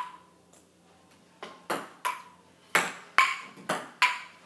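Table tennis rally: a ping-pong ball clicking sharply off paddles and the table, about eight hits, with a pause of over a second after the first and the rest coming in quick succession.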